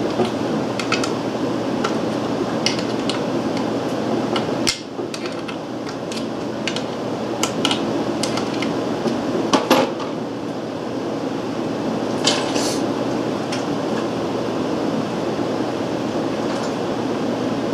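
Scattered light metallic clicks and taps of a screwdriver and small parts being handled on the ignition plate of a 1923 Briggs & Stratton PB engine, over a steady background hum.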